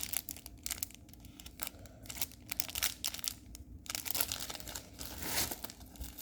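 Plastic packaging crinkling and rustling in irregular crackles as a diamond painting kit is handled, with a longer rustle about four seconds in.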